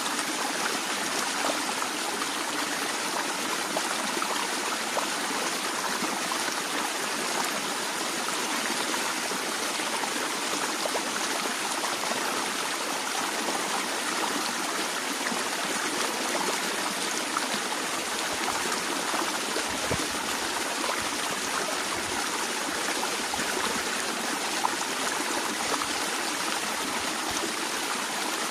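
A shallow stream flowing steadily, with a constant rushing babble and small trickling splashes.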